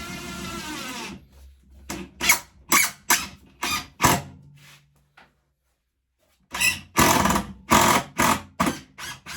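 Cordless drill-driver driving a self-tapping screw into a metal frame: about a second of steady running at the start, then a series of short, loud trigger bursts in two groups, with a pause of about a second between them.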